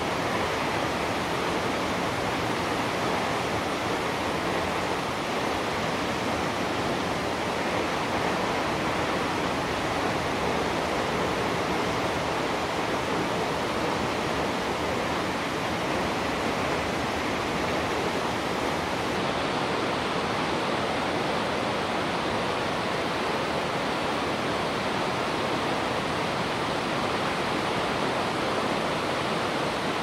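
Shomyo Falls, a 350 m waterfall, and the rocky stream below it: a steady, unbroken rush of falling and running water.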